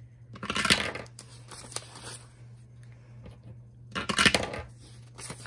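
Paper dollar bills rustling and crackling as they are handled and laid out, in two short bursts: one about half a second in, one about four seconds in.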